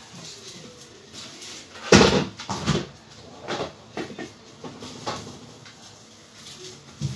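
A string of knocks and clatters from things being handled and moved about in a kitchen, the loudest about two seconds in, followed by several lighter knocks over the next few seconds.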